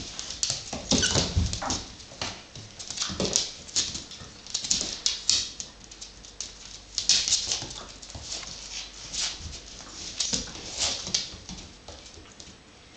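A dog and puppies playing together: short, irregular puppy whimpers and yips, mixed with the scuffle of paws on a wooden floor.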